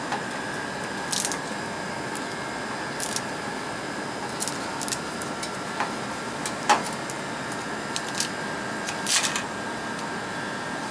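Scattered light clicks and scrapes as a plastic screw cap is turned and handled on an amber glass reagent bottle, over a steady background hiss with a faint high whine.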